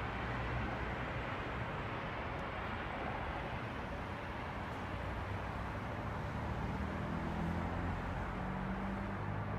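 Steady road traffic noise at a busy junction, with a vehicle's engine hum coming up low and steady in the second half.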